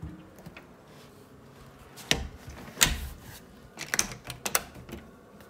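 A door being shut and a doorknob turned: a few sharp knocks and latch clicks, the loudest knock about three seconds in and a quick cluster of clicks around four seconds.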